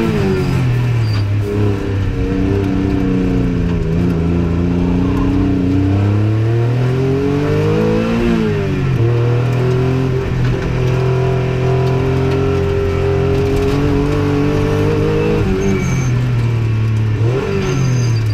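Turbocharged race engine of a 1991 Acura NSX hill-climb car, heard from inside the cockpit as it is driven hard. The revs fall and climb, peak about eight seconds in, drop sharply, hold fairly steady, then fall again near the end.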